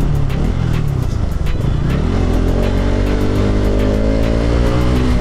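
Bajaj Pulsar RS200's single-cylinder engine on its stock exhaust, dipping and picking up briefly, then accelerating with its pitch rising steadily for about three seconds before dropping abruptly near the end.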